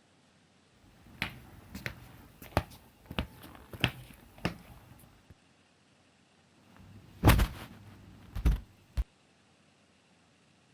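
Foley sounds: a run of six or seven sharp clicks and knocks at a walking pace, then after a pause a louder knock followed by two more.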